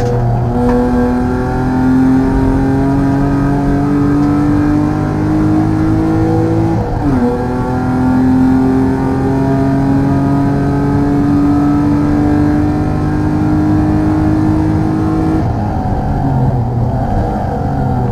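BMW E36 323i's inline-six engine under hard acceleration, revs climbing steadily; about seven seconds in the pitch drops suddenly at an upshift and climbs again in the next gear. Near the end the throttle lifts and the engine note falls away.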